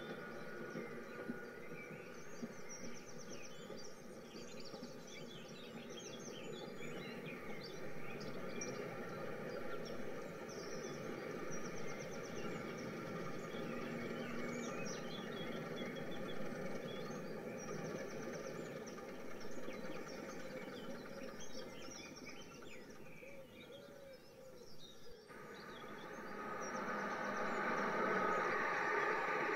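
Dubbed-in railway ambience recording: a steady background rush with frequent birdsong chirps. About 25 seconds in it cuts to a louder rushing train sound that swells.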